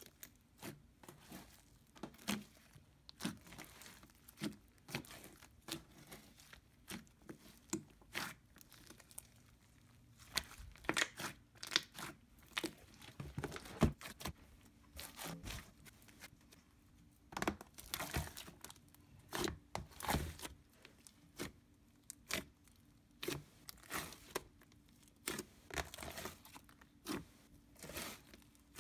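Hands squishing, stretching and folding a large batch of mixed slime, with irregular sticky pops and crackles.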